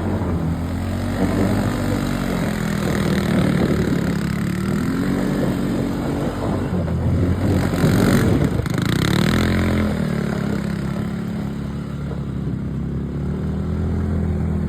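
Quad (ATV) engine revving up and down under throttle, with its loudest rising rev about eight seconds in, then running more steadily.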